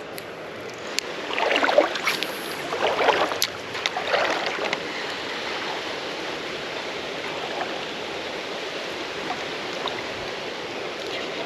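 Creek water running with a steady rush, with a few louder sloshing splashes in the first few seconds.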